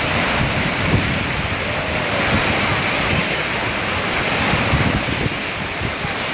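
Wave-pool surf breaking and churning in a steady rush of white water, with wind buffeting the microphone.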